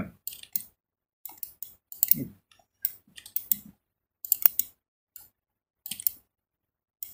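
Computer mouse clicks and keyboard key taps, coming in short clusters roughly once a second.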